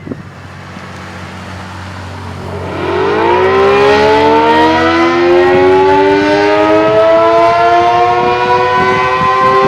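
ACA Allertor 125 outdoor warning siren winding up for the attack signal: about three seconds in its tone starts, rises in pitch, and settles into a loud, nearly steady wail. Wind noise on the microphone runs underneath.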